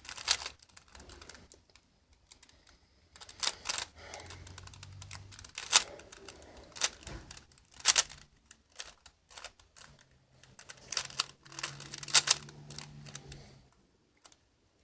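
Plastic Rubik's cube being turned by hand: irregular flurries of sharp clicks and clatter as the layers are twisted, broken by short pauses.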